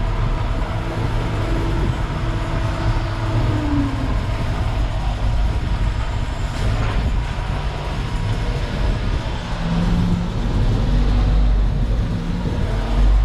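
Diesel engine of a Terex FD4000 front-discharge concrete mixer truck, an MTU-branded Detroit DD15, running with a steady low rumble. A faint tone slides down about a third of the way in.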